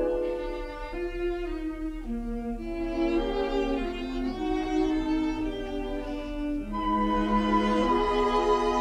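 Orchestral film-score music, with bowed strings carrying a melody in held notes that step up and down in pitch, growing a little louder about seven seconds in.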